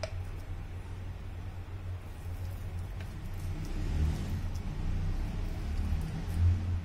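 A low, steady background rumble that swells about four seconds in and again near the end.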